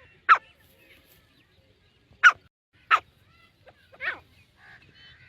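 Teetar (francolin) calling: four short, sharp calls, each falling quickly in pitch, the first three loud and the last, near the end, a little longer and weaker.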